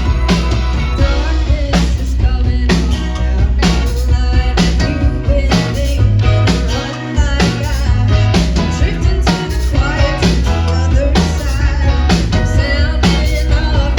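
A rock band playing a song live, with a drum kit keeping a steady beat under a bass line and guitars. The bass and drums drop out briefly about halfway through, then come back in.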